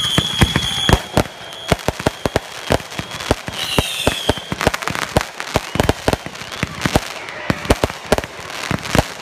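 Fireworks finale barrage: rapid, overlapping bangs and crackling reports going off several times a second. A high whistle from a whistling shell carries through the first second, and another wavering whistle sounds about four seconds in.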